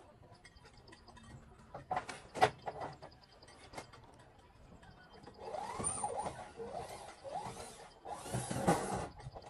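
A few sharp knocks on corrugated roof sheeting as a man works on it, then chickens calling with rising and falling squawks from about halfway, loudest near the end.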